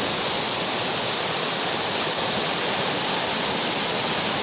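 Flash-flood water rushing in a steady, strong current.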